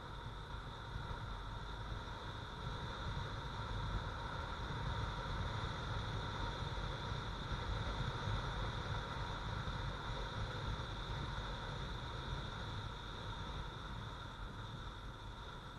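Motorcycle riding at road speed, heard from a helmet-mounted camera: a steady rush of wind and road noise over the engine, growing a little louder a few seconds in and easing slightly near the end.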